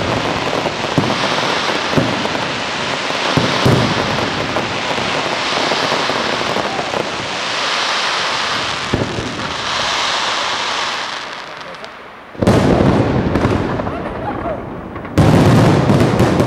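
Aerial fireworks display: a dense crackling hiss of many small pops, then two sudden heavy volleys of bangs, about twelve and fifteen seconds in.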